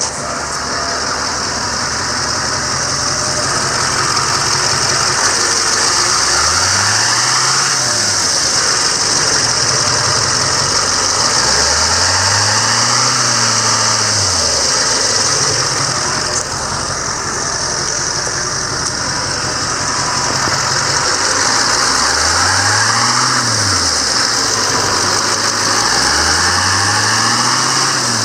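2008 GMC C5500's 6.6-litre Duramax diesel engine idling steadily, under a loud, steady hiss. A low hum swells up and falls away four times.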